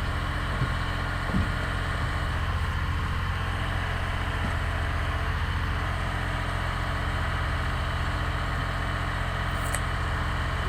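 A vehicle engine idling steadily with a low hum, with a couple of faint knocks early on and a brief click near the end.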